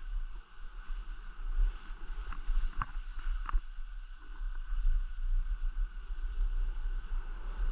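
Wind buffeting the microphone, a fluttering low rumble under a steady hiss, with three light clicks about a third of the way in.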